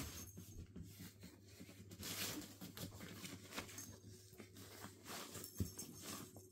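Irish Terrier puppies scrambling over and through a nylon cat tunnel: faint rustling of the fabric and pattering of paws in irregular bursts, with a short knock near the end.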